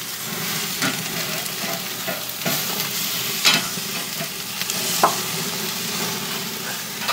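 Thick tomahawk steaks sizzling on the grate of a ceramic grill running at about 650 degrees, as tongs turn them for cross-hatch marks. A steady hiss of searing meat and fat, with a few short sharp clicks as the steaks are moved.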